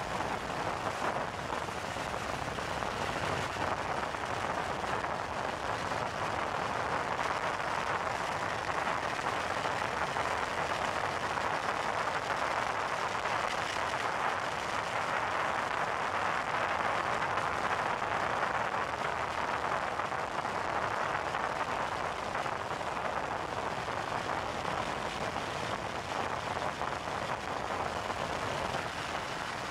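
Steady rush of wind and road noise on a motorcycle-mounted camera while the bike is under way at speed.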